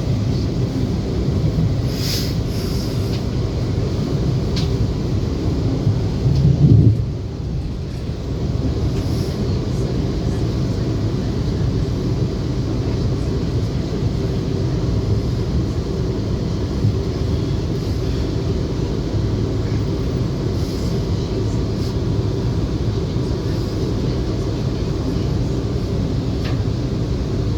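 Passenger train's steady low running rumble, heard from on board, with a brief louder surge about seven seconds in.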